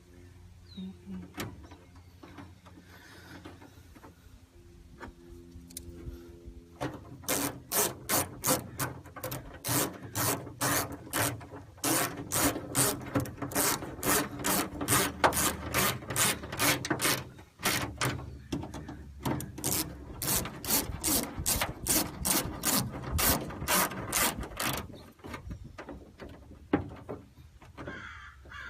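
Hand ratchet and socket clicking as it is worked back and forth, about three sharp clicks a second. The clicking starts about seven seconds in, pauses briefly past the middle, and stops a few seconds before the end.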